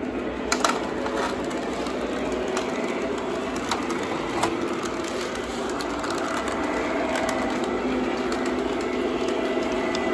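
Lionel O-gauge model trains running on three-rail track: a steady mechanical rumble of motors and wheels on metal rail, with scattered sharp clicks.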